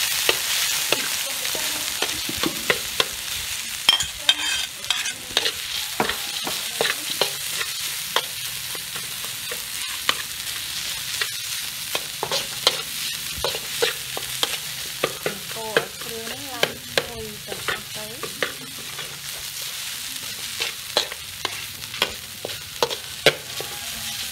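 Chopped peanuts and yellow spice paste sizzling in hot oil in a metal wok, stirred with a metal ladle that scrapes and clinks against the pan over and over through a steady frying hiss.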